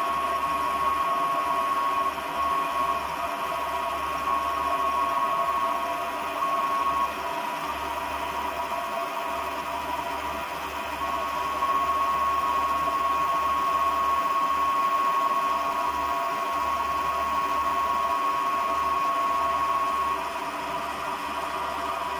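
Metal lathe running steadily while the cutting tool faces down a step on a large spinning metal disc, shedding long stringy chips. A steady high tone rides over the machine noise and drops out for a few seconds midway.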